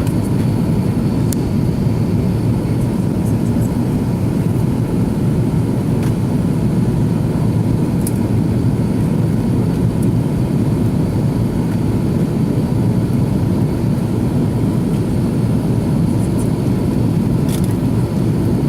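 Steady, loud cabin roar inside an Airbus A330-300 airliner in flight: engine and airflow noise heard from a window seat, with a few faint ticks.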